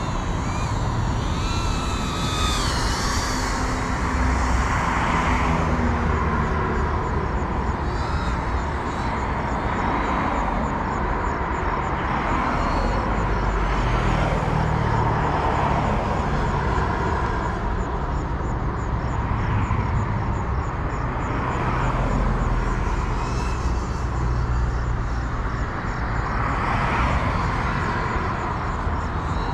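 GEPRC Cinelog 35, a ducted 3.5-inch cinewhoop, flying: its motors and propellers buzz, the whine rising and falling in swells every few seconds as the throttle changes.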